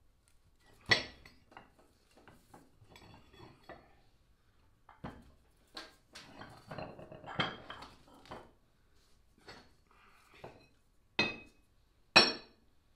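Cast-iron barbell weight plates clanking and clinking against one another as they are handled and stacked, with scraping between the knocks; the loudest clanks come about a second in and near the end. The plates are being set down as weights to press a glued plywood joint.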